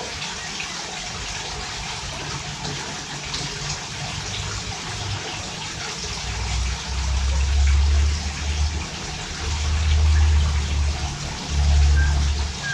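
Steady hiss like running water, with heavy low rumbling from about six seconds in and a few short high chirps near the end.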